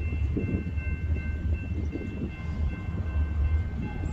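Double-stack intermodal freight train starting to roll after a stop: a steady low rumble from the moving cars, with a faint steady high-pitched squeal.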